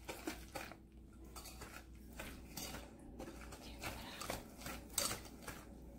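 Wire whisk clicking and scraping against a stainless steel mixing bowl as it stirs wet cookie batter, in quick irregular strokes.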